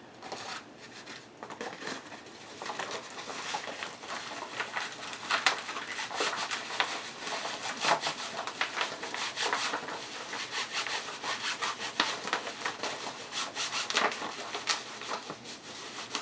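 Diamond painting kit being handled: plastic zip-top bags and packaging rubbing and scraping irregularly, with many small clicks and swishes.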